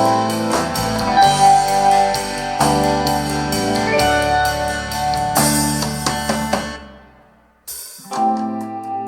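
Recorded music with keyboard and drums, played through Soviet 10MAS-1M loudspeakers driven by a Telefunken TA 350 amplifier. The track fades out about seven seconds in, and after a moment of silence another piece begins.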